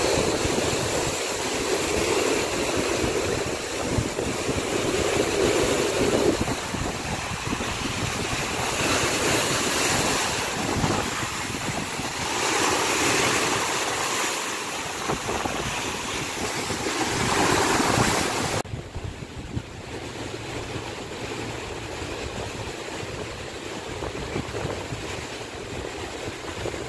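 Rough sea waves breaking and washing over shoreline rocks in repeated surging swells, with wind buffeting the microphone. About two-thirds in the sound drops suddenly to a duller, steadier rush of surf.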